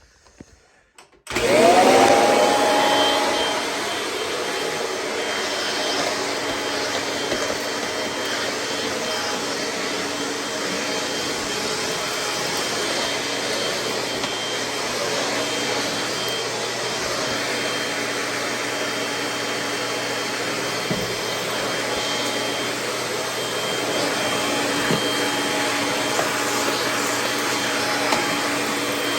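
Kirby G6 upright vacuum cleaner switched on about a second in: its motor spins up with a rising whine, then runs steadily while vacuuming hard floor, a little louder near the end.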